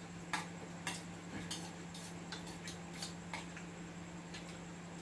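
Chopsticks and spoons tapping and clinking against ceramic bowls during a meal: about a dozen light, irregular clicks, over a steady low hum.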